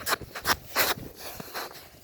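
Winter boots crunching on snow-covered lake ice in quick footsteps, about two or three a second, growing fainter after the first second.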